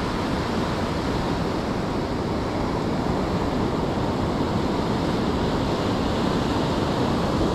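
Steady, even rushing of ocean surf washing on the shore.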